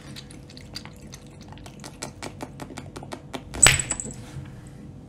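Cat lapping water from a glass, a steady run of small wet clicks about four to five a second. About three and a half seconds in there is one sharp clink against the glass with a brief high ring.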